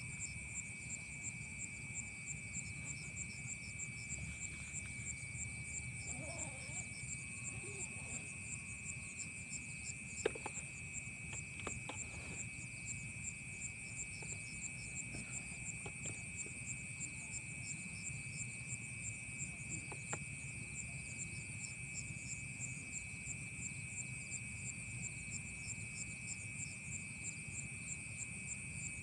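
Night insect chorus: a steady high trill with a higher, rapidly pulsing one above it, over a low rumble. A few light knocks from handling gear, the sharpest about ten seconds in.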